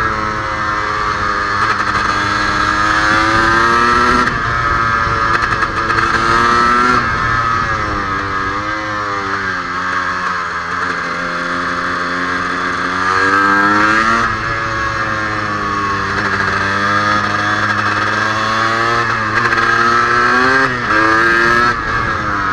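KTM EXC 300's single-cylinder two-stroke engine pulling hard on track, heard from onboard the bike. The revs rise and fall again and again with throttle and gear changes, holding a steadier, lower drone for a few seconds around the middle.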